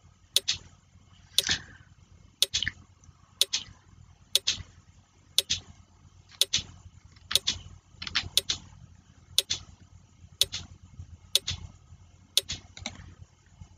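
Countdown timer's clock-tick sound effect ticking about once a second, each tick a quick double click, as the quiz answer time runs down.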